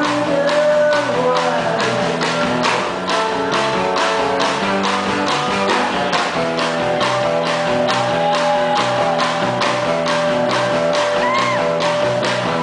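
Indie rock band playing live: electric guitar, bass and drums keeping a steady beat, with a male voice singing in places and a long held note through the second half.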